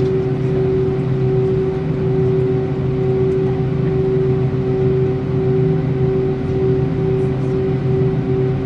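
Steady cabin hum inside a parked Airbus A319 before engine start: a constant drone of the aircraft's systems and ventilation, with a strong steady mid-pitched tone over it.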